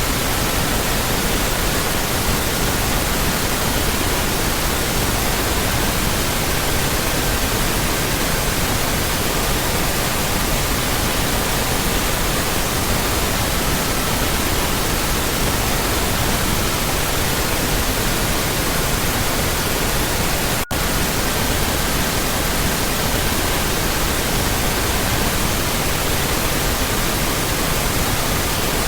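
Steady pink noise hiss with faint pure tones near 1.2–1.5 kHz laid over it, shifting from one pitch to another every few seconds. The sound cuts out for an instant about two-thirds of the way through.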